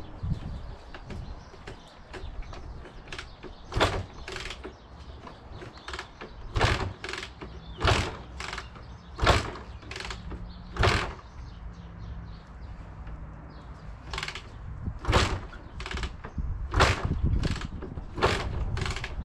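Honda MTX 200 motorcycle being worked on: about fifteen sharp mechanical clunks and clacks, irregular and often in pairs about half a second apart, over a low background rumble. The engine does not fire.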